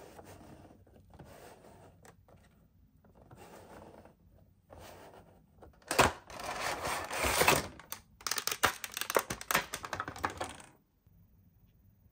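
Toy packaging being handled and opened by hand: faint rustling at first, then a sharp click about halfway through and louder rustling, followed by a quick run of crackling clicks that stops a second before the end.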